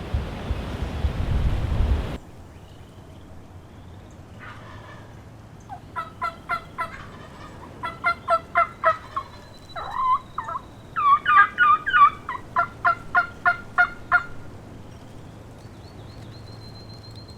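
Wind buffeting the microphone for the first two seconds, then a turkey calling in several runs of quick, evenly spaced notes from about four to fourteen seconds in.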